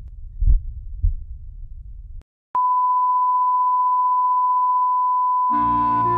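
Heartbeat sound effect: two low thumps about half a second apart, then a moment of silence and a sudden long steady beep, like a heart monitor's flatline. Music comes in under the beep near the end.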